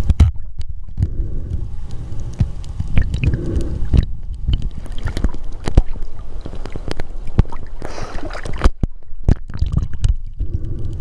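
Water gurgling and sloshing around a camera held by a swimmer, moving underwater and through the surface: a steady low rumble with scattered clicks and knocks, a few brief dropouts, and a short splashing hiss about eight seconds in.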